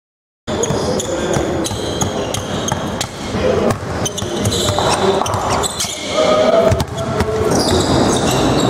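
Basketball bouncing on a gym floor, the thuds echoing in a large hall; the sound starts about half a second in.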